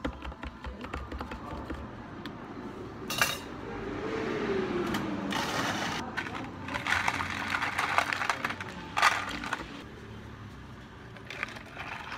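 Iced-drink prep at a cafe counter: a spoon stirring and clinking in a plastic cup of ice and milk, with scattered clicks and knocks. There is one sharp knock about three seconds in, then a couple of seconds of rushing noise with a falling tone, then a busy run of clinking.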